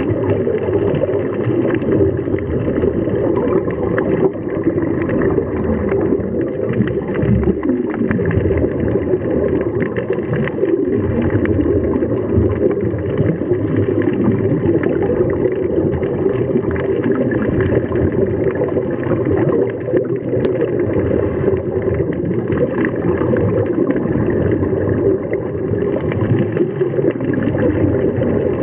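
Steady, muffled underwater rushing and gurgling noise, as picked up by a camera in a waterproof housing during a dive.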